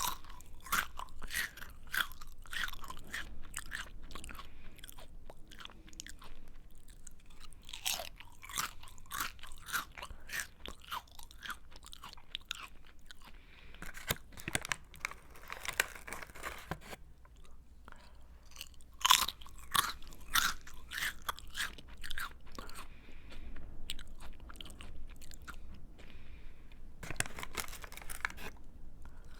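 Close-up chewing of a crunchy snack: sharp, irregular crunches as it is bitten and chewed, with a few quieter stretches of softer chewing.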